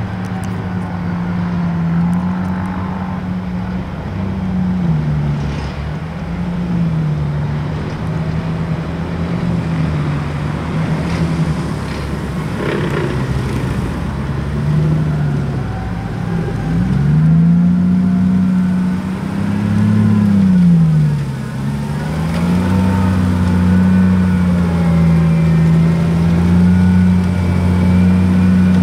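Engine of a British Army tracked engineer vehicle carrying a pipe-fascine bundle as it drives, the engine note rising and falling repeatedly as it is revved and eased off. There are deeper dips about halfway through and again a few seconds later.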